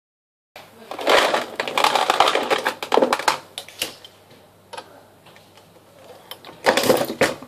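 Blue progressive ammunition reloading press being worked: rapid metallic clicking and clinking of the press linkage, shellplate and brass cases as the handle is cycled and a bullet is set on a case. Two bursts of clatter with a quieter stretch of scattered clicks between them.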